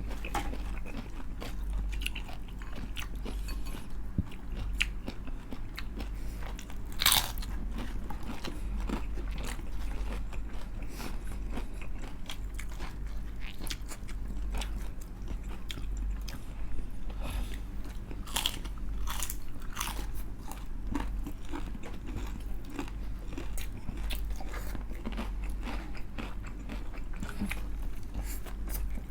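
Close-up crunching and chewing of crispy fried chicken skin: frequent crisp bites, with one louder crunch about seven seconds in.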